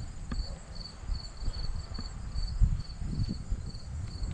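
Insect chirping in a steady rhythm, about two to three short high chirps a second, over low, uneven rumbling.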